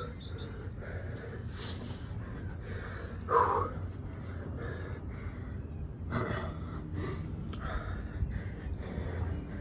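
A man breathing hard, winded from a high-intensity bodyweight circuit: a series of loud, airy exhales and gasps a second or more apart, the loudest about three and a half seconds in.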